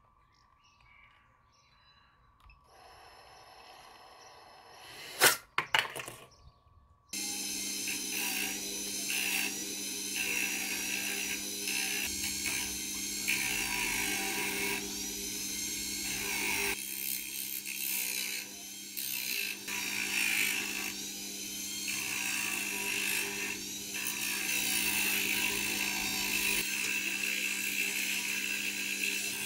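A few sharp knocks, then from about seven seconds in a rotary tool runs steadily with a sanding drum, grinding the edges of a forged carbon fiber quadcopter frame; the grinding comes and goes in strength as the part is worked against the drum.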